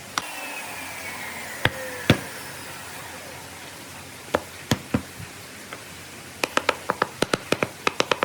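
Sharp knocks, a few scattered at first, then a quick run of about five a second over the last two seconds, like blows on wood. A faint falling whistle-like tone glides down during the first couple of seconds.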